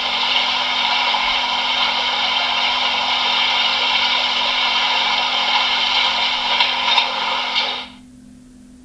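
Sound decoder of a Trix H0 model of the DB class 44 steam locomotive playing its "taking on water" effect through the model's small speaker: a steady rush of water filling the tender, which stops about eight seconds in.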